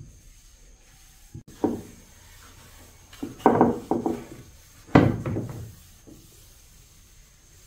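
Wooden sewing-machine base being handled on a wooden workbench: a few knocks and scrapes of wood against wood, the loudest about five seconds in.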